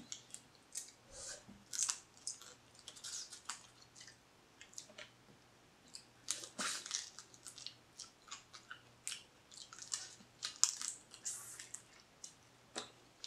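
Mouth sounds of eating blue crab: biting and chewing on pieces of crab in the shell, a string of irregular short wet clicks and crunches.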